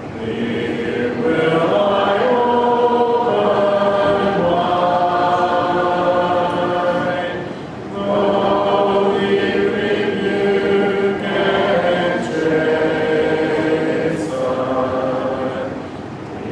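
Church congregation singing a hymn a cappella, in slow, held notes, with a break between lines about eight seconds in and another near the end.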